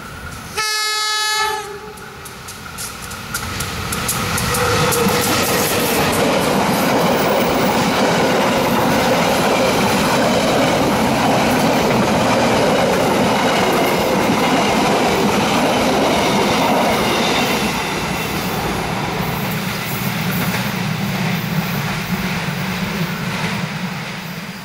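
Diesel-electric locomotive sounds a short horn blast about half a second in. Its passenger train then passes close by, wheels clattering over the rail joints for most of the time, and dies away near the end.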